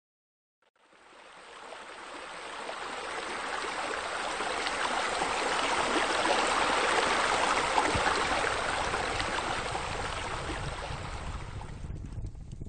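Running water splashing steadily, as from a cascading garden fountain. It fades in about a second in, swells to its loudest around the middle and eases off near the end.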